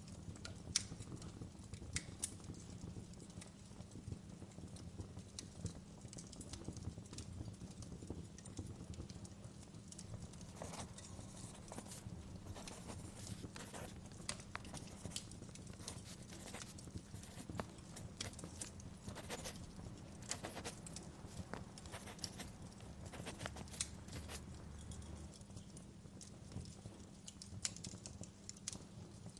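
Fire crackling, with irregular sharp pops and snaps over a steady low rumble; the pops come thicker through the middle stretch.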